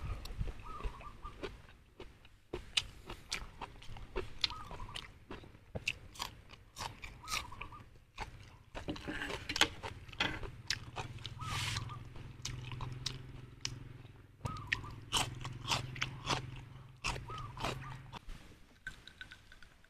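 A person chewing a mouthful of stir-fried goat offal close to the microphone: irregular wet mouth clicks and crunches.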